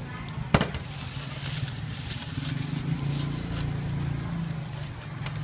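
A low, steady engine hum, with one sharp knock about half a second in.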